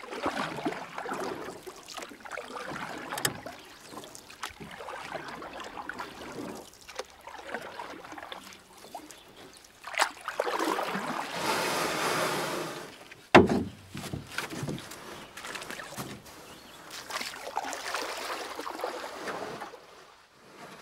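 Canoe being paddled: water sloshing and trickling off the paddle in uneven swells, with a few clicks and one sharp knock about thirteen seconds in, the loudest sound.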